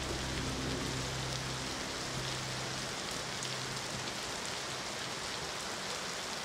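Steady rain falling, an even patter of drops. The last low sustained notes of a closing music track fade out over the first two seconds.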